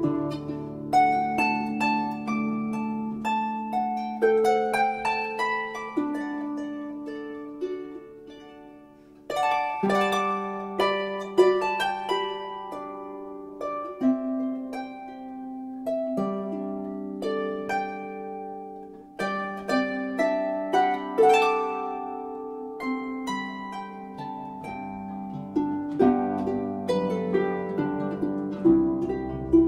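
Solo harp music: plucked notes ringing over lower bass notes in slow phrases, fading to a brief lull about nine seconds in before the next phrase begins.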